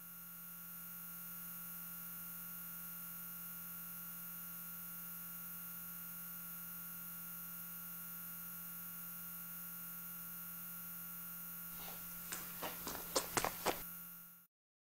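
A steady electrical-sounding hum made of several fixed tones, fading in at the start. A little before the end, a quick run of about ten sharp clicks and taps plays over it, then the sound cuts off suddenly.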